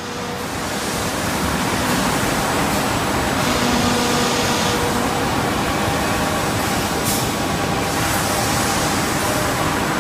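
Automatic wood panel jointing and cutting line running: a steady, loud machine noise from motors and dust extraction, with faint steady hums. It swells up over the first second or so.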